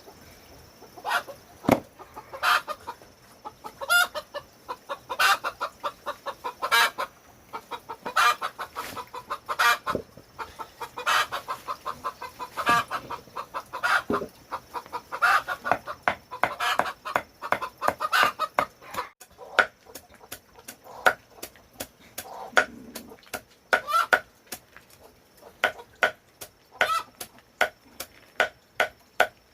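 Chickens clucking and squawking over and over, with many sharp clicks and knocks in among the calls.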